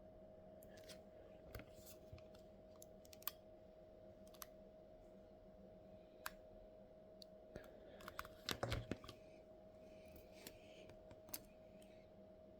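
Faint scattered clicks and light taps, with a short cluster of louder ones about eight and a half seconds in, over a faint steady hum.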